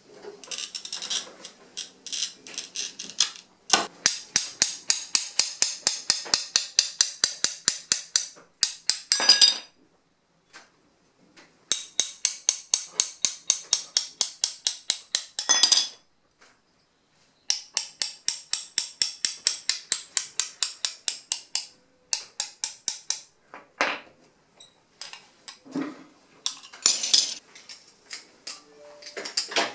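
Ball end of a glass cutter tapping the underside of a score line in blue stained glass, quick sharp taps about five a second in three runs of several seconds each, to run the score so the piece breaks away along the cut. A few scattered clicks of glass and tool follow near the end.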